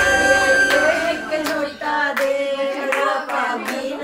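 Women singing together with steady hand claps, about one clap every three-quarters of a second. A sustained instrumental accompaniment drops out about a second in, leaving the voices and claps.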